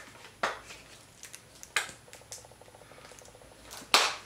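Plastic squeeze bottle of mayonnaise being squeezed onto bread, with soft squishes and a few sharp clicks of handling; the loudest knock comes near the end.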